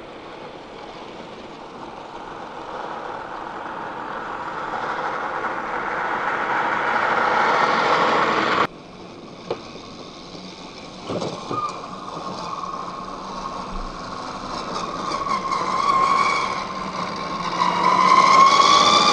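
Electric motors and geared drivetrains of scale RC crawler trucks whining as they drive. The first truck grows louder as it comes closer. After a sudden cut about nine seconds in, a second truck's motor whine rises and falls with the throttle, with a few light clicks, and swells near the end.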